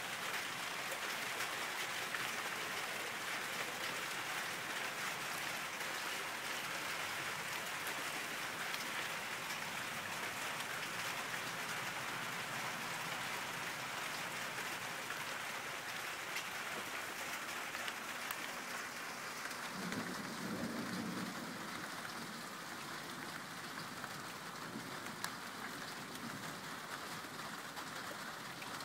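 Steady rain falling during a thunderstorm, an even hiss throughout. About two-thirds of the way through a brief low rumble comes in, and after it the rain grows slightly quieter.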